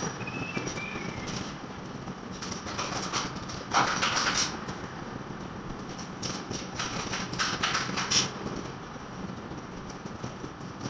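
Building repair work: irregular scraping and rasping strokes with a few knocks over a steady background noise.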